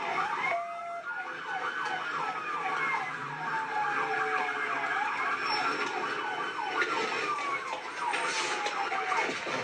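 Several police sirens sounding at once: a slow wail rising and falling every few seconds over a fast, rapidly repeating yelp.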